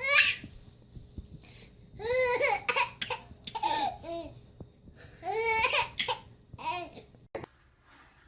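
A baby laughing and babbling in high-pitched squealing bursts: one sharp squeal at the start, then four bouts of laughter. Cut off by a click near the end.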